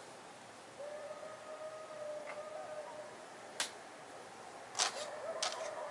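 Eastern coyote howling: one long, nearly level howl starting about a second in and lasting about two seconds, and another beginning near the end. Sharp clicks come in between.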